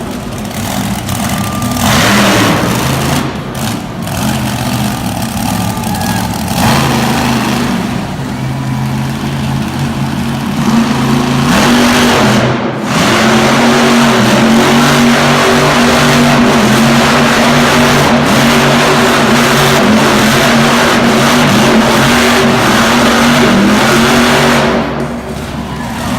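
Monster truck engine running and revving in bursts, then held loud and steady at high throttle from a little under halfway through until just before the end.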